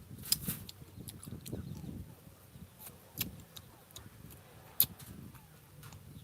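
Rambutan rinds being torn open by hand: a few sharp snaps, the loudest about three seconds and nearly five seconds in, over soft rustling and handling sounds.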